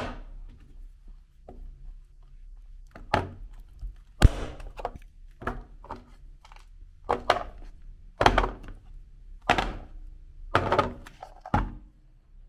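A hard bar of soap being broken apart by hand over a plastic tray: about a dozen sharp cracks and knocks at uneven intervals as it snaps into chunks.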